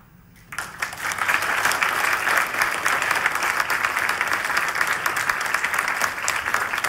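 Audience applauding. The clapping starts about half a second in and goes on steadily.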